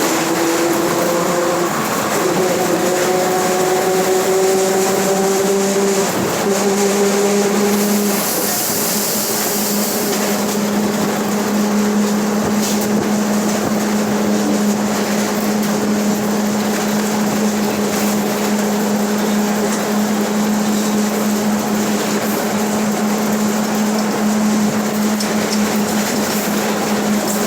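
Mercedes-Benz OF 1721 BlueTec 5 bus under way with its differential growling: a tone that climbs, with several rising overtones, as the bus gathers speed over the first eight seconds or so, then holds steady over road noise. The sound is that of a noisy differential.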